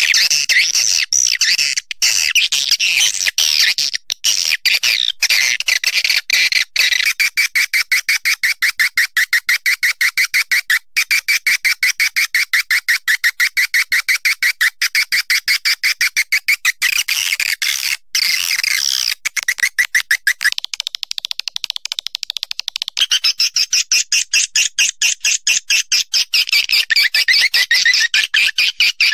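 Edible-nest swiftlet calls, the kind of recording played to lure swiftlets into nesting houses: a fast, unbroken train of short twittering chirps, many per second. The pitch and pace shift a few times.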